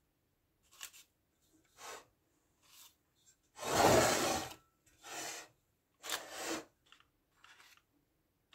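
A bread lame's razor blade drawn across risen bread dough, scoring slashes: about seven short scraping strokes, the loudest, about a second long, near the middle.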